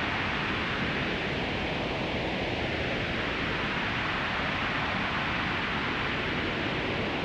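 Synthesized wind-and-rain sound: white noise through a slowly sweeping filter with reverb, a steady hiss whose tone gently shifts over a few seconds like a passing gust.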